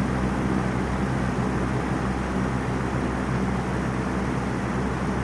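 Vintage Wizard box fan running steadily on high speed: an electric motor hum under a constant rush of air from the blades.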